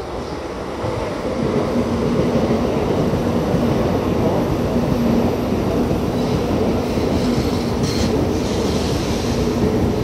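Shinkansen bullet train pulling in along the platform: a rush of wheels and air that grows over the first two seconds and then holds steady, with a steady low hum beneath it and a brief hiss near the end.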